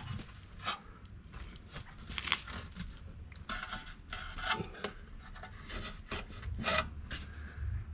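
Irregular rubbing and scraping as the removed Lada 4x4 Niva seat is handled, its upholstery, foam and frame shifting under the hands.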